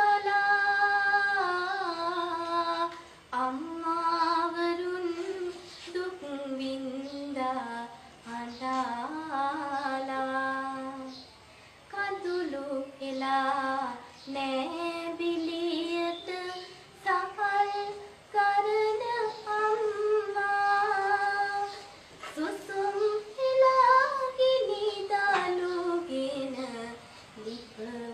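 A schoolgirl singing a song solo without accompaniment. She holds long notes and slides between pitches, in phrases separated by short breaths.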